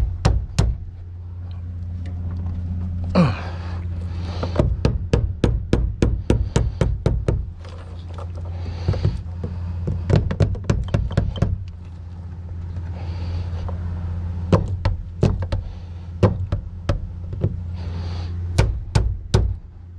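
Butt of a hammer knocking on the fuel pump lock ring to drive it round and lock the pump into the fuel tank: runs of quick sharp knocks separated by short pauses.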